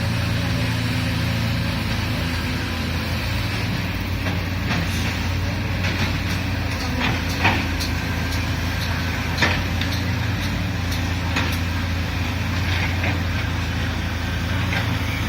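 Excavator's diesel engine running steadily, with a few sharp knocks on top, the two loudest about seven and a half and nine and a half seconds in.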